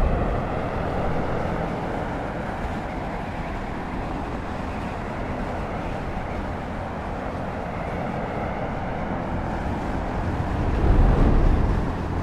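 Jet engine and rushing air of a small jet-powered glider in flight: a steady, even rushing noise that swells briefly near the end.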